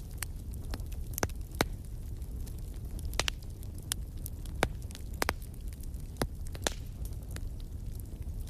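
Wood fire in a fireplace crackling, with irregular sharp pops, a handful of them loud, over a steady low rumble of the flames.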